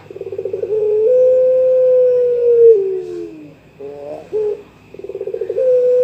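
Young puter pelung, a Barbary dove bred for long cooing, calling to a rival. Each coo opens with a quick stutter of short pulses, then a long held note that drops in pitch at its end. The coo comes twice, with a few short notes between.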